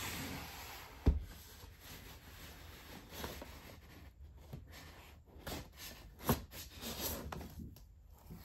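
Cardboard packaging being handled: the boxes slide and rub against each other, with a sharp knock about a second in and another about six seconds in.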